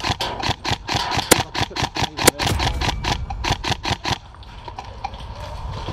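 Airsoft gunfire: a rapid, irregular string of sharp cracks, several a second, which stops about four seconds in.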